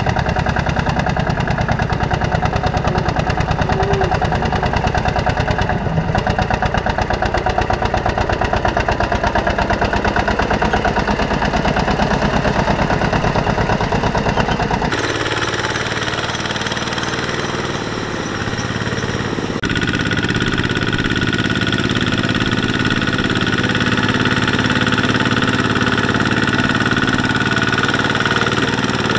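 Two-wheel walking tractor's single-cylinder diesel engine chugging with a fast, even beat as it hauls a loaded trailer through deep mud. The sound changes abruptly about halfway through and again a few seconds later, then runs smoother with a steady whine.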